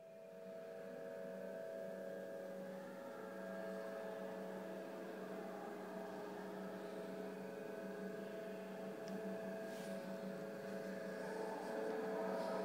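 Steady multi-toned hum from a kinetic installation's AC motors spinning a long elastic cord between steel cylinders, its tones shifting slightly near the end. A sharp click right at the start.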